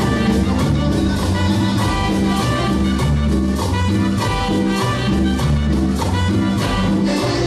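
A live Latin dance band playing an upbeat number with a steady, even beat.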